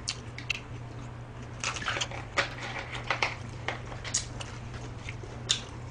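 Close-miked eating: chopsticks clicking against a plastic takeout tray at uneven intervals, mixed with chewing, over a steady low hum.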